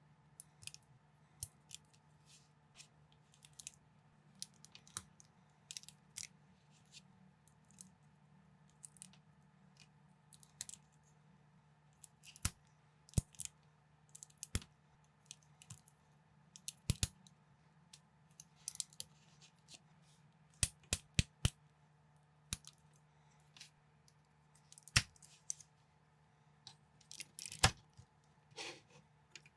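Plastic LEGO bricks being handled and snapped together: scattered sharp clicks, sometimes several in quick succession, over a faint steady hum.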